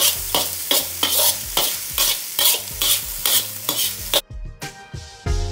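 Steel slotted spoon scraping and tossing fried rice around a hot iron wok, with the rice sizzling, in quick strokes about three a second. About four seconds in it gives way to background music.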